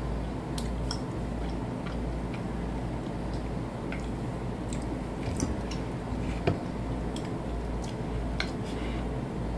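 Light clicks and taps of eating, scattered and irregular, with one sharper click about six and a half seconds in, over a steady low hum.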